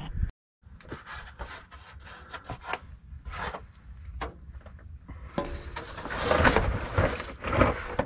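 Wrench working a stuck brass drain plug on a gas tank: scattered clicks and scrapes of metal on metal, growing into heavier scraping and rubbing in the second half.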